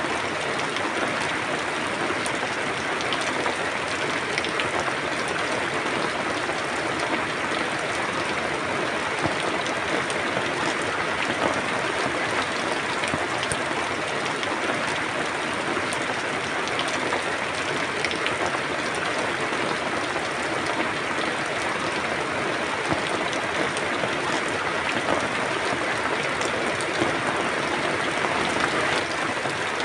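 Steady rain falling, a dense even patter of many drops hitting a surface.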